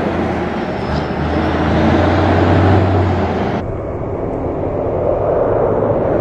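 Heavy Hayes dump truck's diesel engine running as the truck pulls away, a steady low hum with the sound of its tyres on gravel. About three and a half seconds in, the sound cuts abruptly to duller, more distant road and engine noise.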